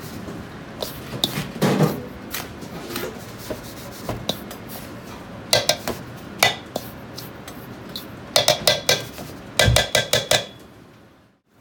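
Chinese ladle scraping and clinking against a stainless steel bowl while stirring seasoned salt, with scattered knocks and two quick runs of ringing metal clicks, one near the middle and one toward the end. The sound fades out just before the end.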